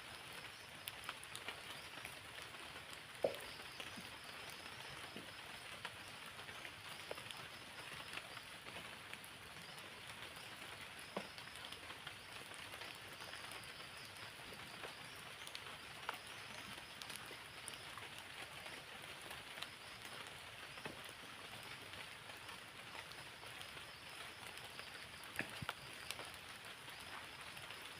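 Steady light rain falling, with scattered single drops ticking sharply now and then.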